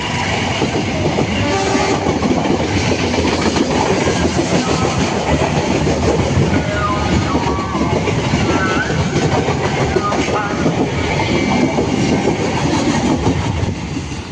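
A train passing close by over the level crossing, its wheels clattering steadily over the rail joints, the noise easing right at the end.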